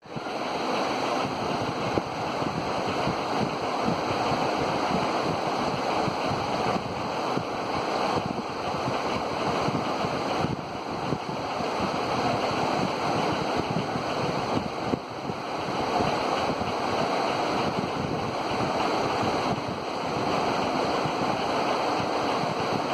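Steady rushing air noise from the spinning blades of a 3D holographic LED advertising fan.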